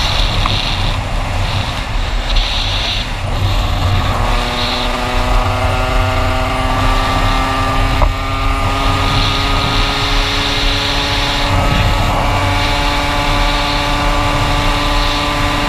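Aprilia RS 50's two-stroke Minarelli AM6 engine, fitted with an 86 cc aluminium cylinder kit, running on the road under heavy wind noise on the microphone. From about four seconds in the engine's note stands out as a steady tone that climbs slowly in pitch.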